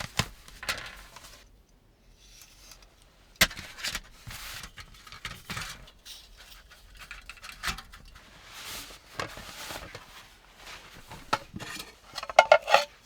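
Rummaging and handling gear in a small space: rustling, scattered clicks and knocks, a sharp click about three and a half seconds in, and a quick run of clinking near the end.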